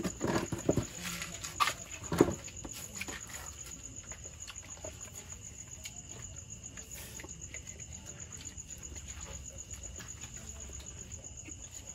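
Crickets trilling steadily, a high-pitched, evenly pulsing chirr, with a few knocks and clatters in the first couple of seconds.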